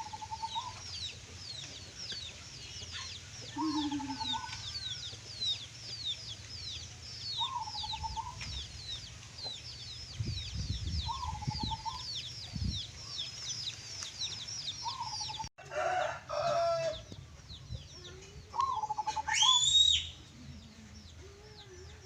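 Zebra dove (perkutut) repeating its short cooing song phrase about every four seconds. Many high, falling chirps from other birds run behind it for most of the time, and a louder, rising call comes near the end.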